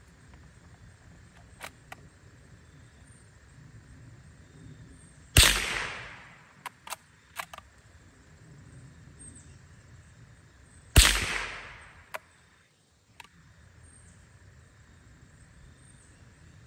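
Two shots from a Remington Model 512 Sportsmaster bolt-action rifle firing .22 Long Rifle, about five and a half seconds apart, each trailing off over about a second. Shortly after the first shot, the bolt is worked with a few quick metallic clicks.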